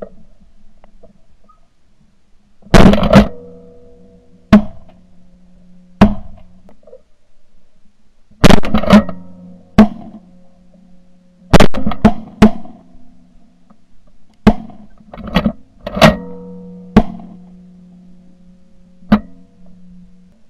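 Shotgun fired about a dozen times at irregular intervals, some shots in quick strings of two or three, each a sharp blast. Faint background music runs underneath.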